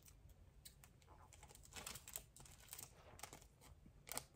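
Faint scattered clicks and rustles of scissors and a foil Pokémon card booster pack being handled, with a sharper snip near the end as the pack is cut open.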